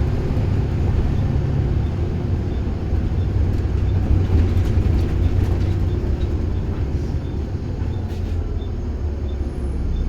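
Bus engine and drivetrain running: a steady low drone, with a faint regular ticking above it.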